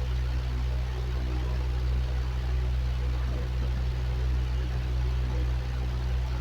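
Electric fan running steadily: a low motor hum under an even rush of moving air.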